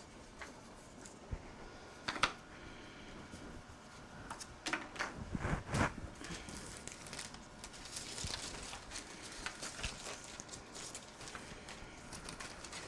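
Sheets of scrapbook paper being handled and shuffled, with scattered light clicks and taps, a sharper one about two seconds in and a small cluster around the middle.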